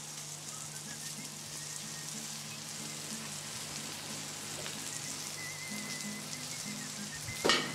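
Chopped onion, celery, carrot, capers and olives frying in olive oil in a steel frying pan, sizzling steadily. A short louder noise comes near the end.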